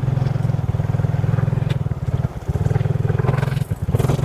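Motorcycle engine running hard under load, its note dropping away briefly twice, about two seconds in and again near the end.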